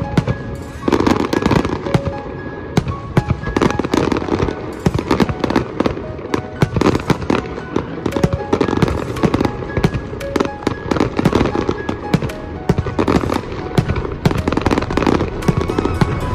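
Fireworks display: a dense, continuous barrage of bangs and crackles from aerial shells and ground-level effects bursting, several reports a second.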